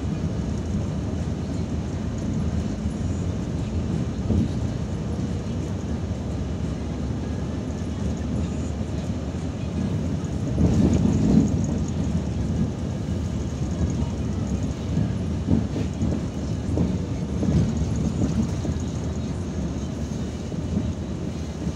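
Cabin noise inside a moving Irisbus Citelis 12 m city bus: engine and road noise run steadily, with a louder stretch of about a second and a half halfway through.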